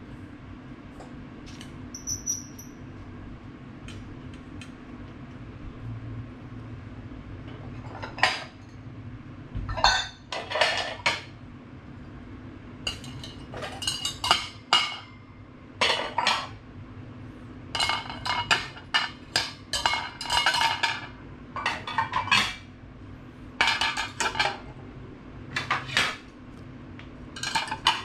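Dishes clinking and clattering against a stainless-steel wire dish rack as they are set in place: a few small clicks at first, then frequent clusters of clinks from about a third of the way in. A steady low hum sits underneath.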